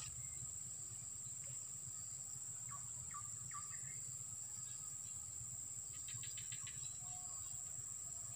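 Insects trilling steadily on one high pitch, with a few short chirps about three seconds in.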